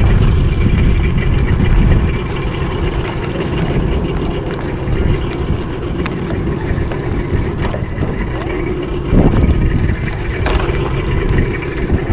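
Boat's outboard motor running steadily under way: a continuous engine drone with a rushing of wind and water.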